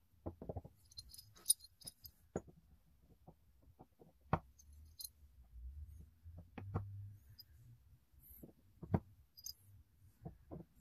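Steel Forstner bits being lifted out of one wooden holder and set into the holes of another: scattered light knocks of the bit shanks against wood, with a few metallic clinks of steel on steel.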